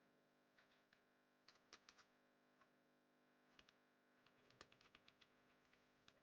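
Faint typing on a computer keyboard: scattered soft key clicks in irregular clusters, busiest about a second and a half to two seconds in and again around four and a half to five seconds, over a faint steady hum.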